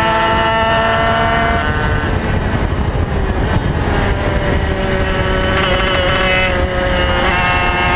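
Onboard sound of a racing motorcycle's engine at high revs, with wind rumbling on the microphone. About two seconds in the engine note breaks up and eases off, then sags slowly in pitch through the corner and climbs again about a second before the end.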